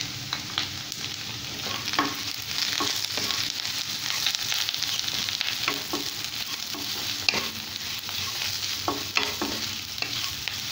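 Sliced ivy gourd frying in oil in a pan and being stirred with a wooden spatula: a steady sizzle with irregular scrapes and taps of the spatula against the pan.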